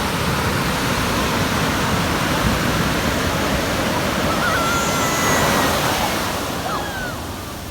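Ocean surf breaking and washing up the beach, a steady rush of water that swells about five seconds in and eases off near the end.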